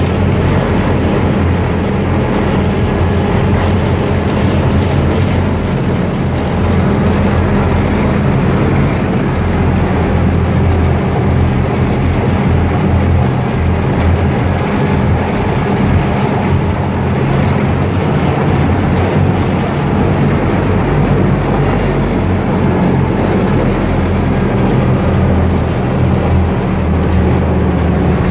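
The engine of a WWII-era DUKW amphibious 'duck' running steadily under way on the river: a constant low drone, with the rush of the churning wake thrown up behind it.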